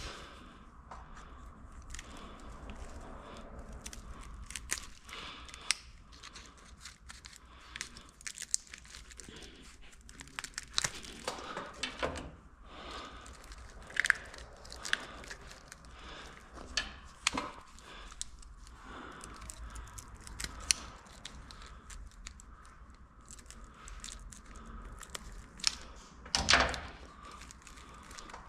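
Hands working on an engine wiring harness: irregular crinkling, tearing and sharp clicks as wires, tape and plastic loom are handled, with a louder crackle near the end.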